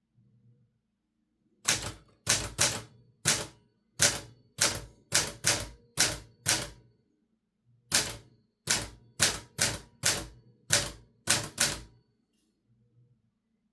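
A 1968 Olivetti Linea 88 manual typewriter being typed on: about twenty sharp keystrokes at an uneven pace, with a short pause midway.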